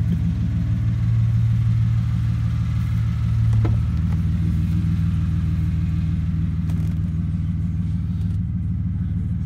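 Chevrolet Silverado pickup's V6 engine idling steadily, with one brief click partway through.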